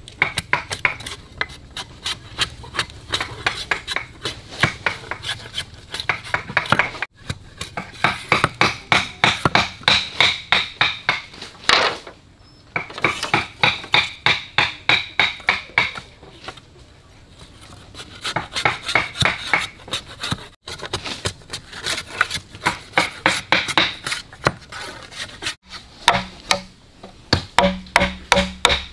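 Fast, rhythmic scraping or rubbing strokes, several a second, in runs of a few seconds with short pauses between.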